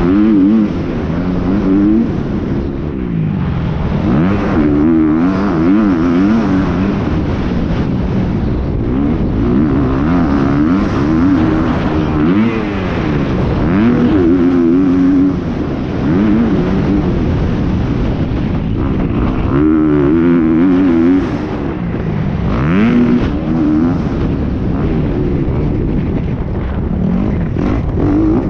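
Dirt bike engine at full working load on a motocross track: it revs up hard, drops as the rider shifts or rolls off, and revs up again, over and over. It is heard close up from a camera mounted on the bike.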